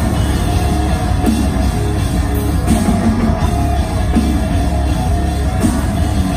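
A metalcore band playing loud live through a venue PA: distorted electric guitars, bass and a drum kit, heard from out in the audience.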